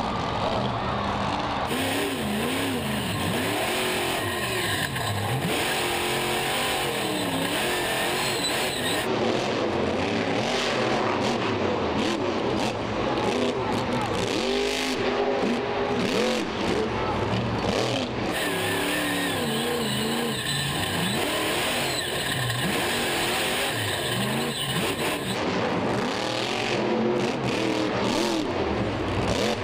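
Monster truck's supercharged V8 engine revving up and down in repeated swells under hard throttle, over a steady wash of stadium crowd noise.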